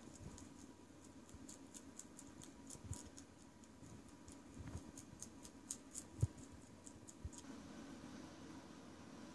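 Rabbit chewing dry hay: faint, crisp crunching clicks, a few a second, that stop about seven seconds in, with a few soft low thumps among them.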